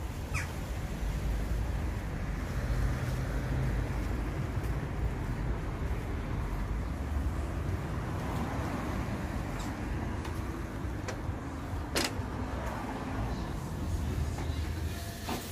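Steady low rumble of street traffic, with a few sharp clicks, the sharpest a few seconds before the end.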